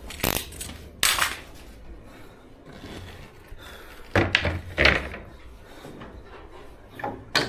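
Wooden bed-frame boards being handled, giving several separate sharp wooden knocks and thuds.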